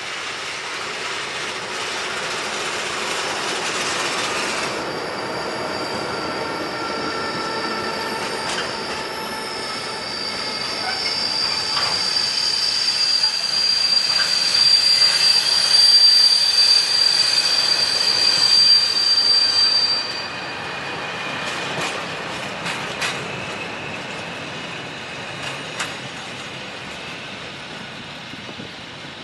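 Container freight train passing, with a high, steady metallic wheel squeal from the wagons that grows loudest about halfway through and cuts off suddenly about two-thirds of the way in. After that the wagons run on with a rumble and the clicks of wheels over rail joints.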